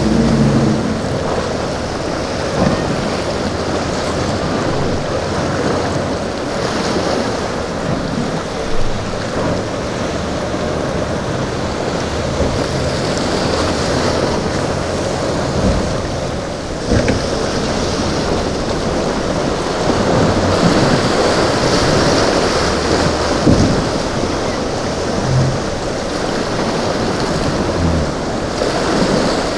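Rough-water waves and surf rushing and breaking, with wind buffeting the microphone and boat engines running low underneath at times.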